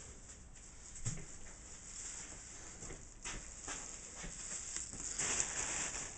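Plastic bag crinkling as a bag of dry ingredient wrapped in a plastic grocery bag is handled over a glass mixing bowl, with a single soft knock about a second in and a few light clicks.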